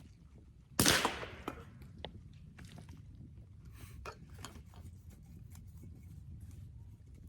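A foil pouch of freeze-dried meal is torn open with one sharp rip less than a second in, followed by faint crinkling and clicking as the packet is handled.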